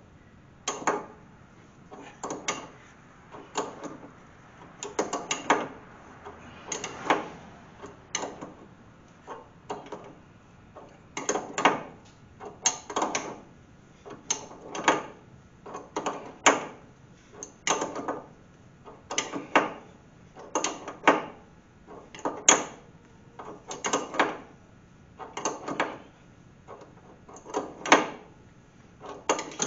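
Ratcheting wrench clicking in short runs, about once every second and a half, as it turns the strut rod nut and squeezes the new polyurethane strut rod bushing against the frame.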